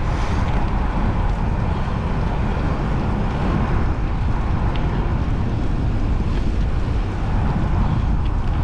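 Wind rumbling steadily on the microphone of a moving bicycle rider, with road noise underneath.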